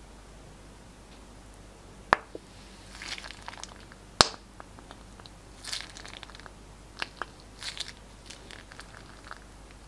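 Plastic piping bag crinkling and crackling as it is squeezed to push out glossy slime, with two sharp clicks, about two and four seconds in.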